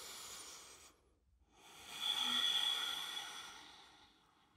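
A woman breathing slowly and audibly: a faint short breath at the start, then a longer, louder breath from about two seconds in.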